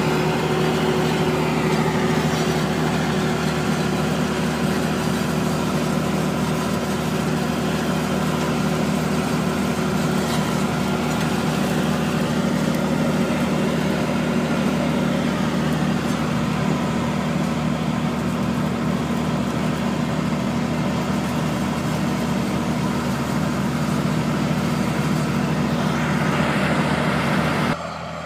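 Large tracked tractor's diesel engine running steadily under load as it pulls a Grizzly Tiny 460 disc harrow, whose disc gangs are cutting through dry soil. The sound drops suddenly just before the end.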